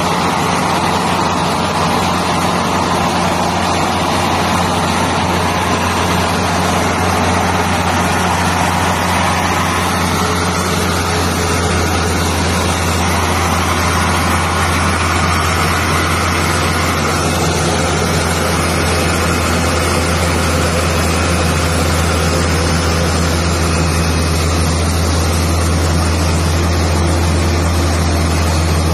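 Pushback tug's engine running steadily under load as it pushes a Boeing 787-8 airliner back: a constant low engine drone with a broad rushing noise over it.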